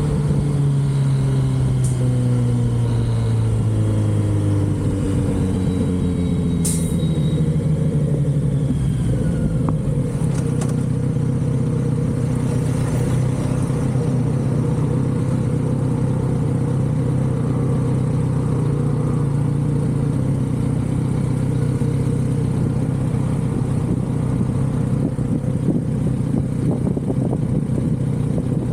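Kawasaki Z900RS inline-four engine through its stock exhaust, dropping in pitch over the first few seconds as the bike slows, then running at a steady pitch. A single short click about seven seconds in.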